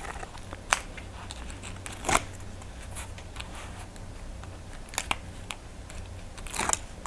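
Paper being handled with a small plastic craft tool: a handful of scattered soft clicks and crinkles over a low steady hum.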